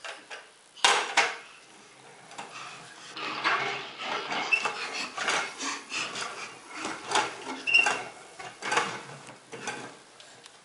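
Plastic toy tractor being pushed across a hardwood floor, its wheels and body rattling and knocking against the boards in a run of sharp clatters.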